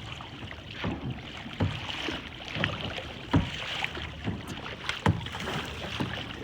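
Kayak paddle blades dipping and splashing into the water in a steady rhythm, a bit more than one stroke a second.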